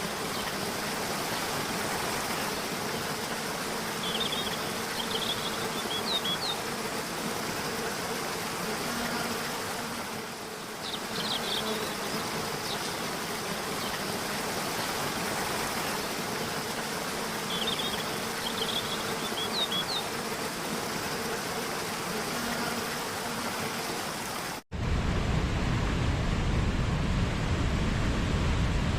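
Waterfall and stream water rushing steadily, with insects buzzing and two short runs of high chirping calls. About 25 seconds in, the sound cuts abruptly to a louder, deeper rush of falling water.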